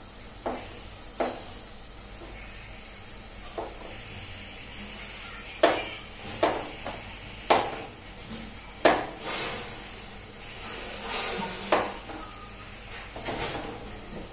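Kitchen knife cutting potatoes on a chopping board: about ten irregular sharp knocks. Underneath them is a steady sizzle of onions frying in oil.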